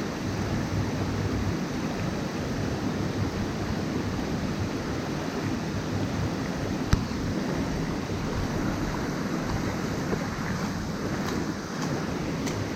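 Steady rush of flowing river water, with one sharp click about seven seconds in.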